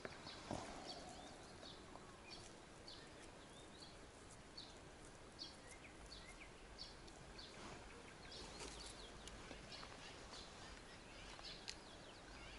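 Faint birdsong: scattered short chirps from small birds over a quiet outdoor background.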